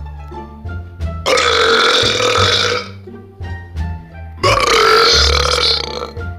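Two long, loud human belches, one starting about a second in and the other about four seconds in, each lasting nearly two seconds, over background music with a low bass line.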